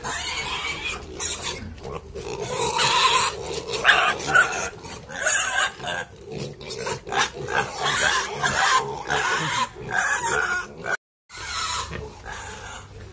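A pen of pigs grunting, many short, overlapping, irregular calls.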